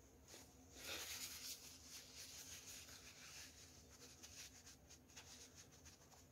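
Faint rustling and rubbing of a tissue wiped over the face, loudest about a second in.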